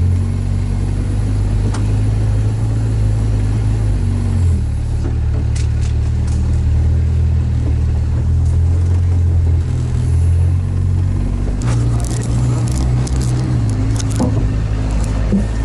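Sherp all-terrain vehicle's diesel engine running under way, its low hum shifting in pitch about four seconds in and again near the end. A spell of sharp clicks and knocks comes near the end.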